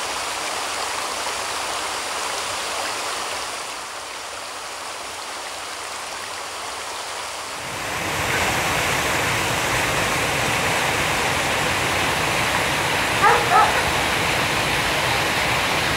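Fast stream rushing over rocks, growing louder and fuller about eight seconds in as the water pours over a small waterfall. A dog barks twice, briefly, about thirteen seconds in.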